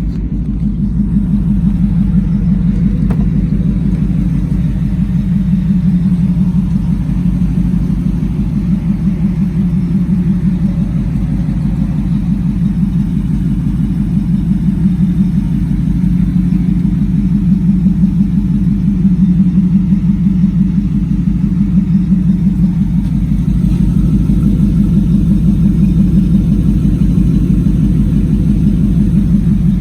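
2002 Ford Lightning's supercharged 5.4-litre V8 idling steadily through long-tube headers, high-flow cats and a Bassani cat-back exhaust, a loud, low, even exhaust note.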